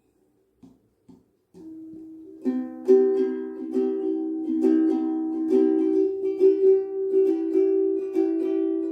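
Soprano ukulele played without the AD-35 transducer pickup: a few light plucked notes, then repeated strummed chords from about two and a half seconds in.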